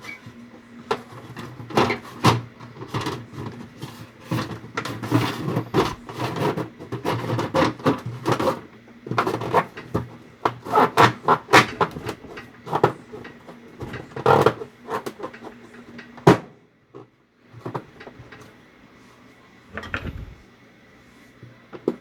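Irregular knocking and clattering of a refrigerator's inner back-wall panel being fitted and its screws fastened, with a low steady hum underneath. The knocks stop about two-thirds of the way in, and a single thump comes near the end.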